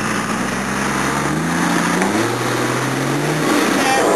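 Toyota Land Cruiser 80's engine working under load on a steep muddy climb, revving up twice, about a second in and again about two seconds in, then easing off.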